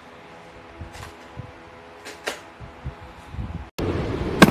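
Light clicks and taps of a clear plastic tub of paper air fryer liners being handled, over a faint steady hiss. A little before the end the sound cuts to a louder, even noise with a sharp click near the end.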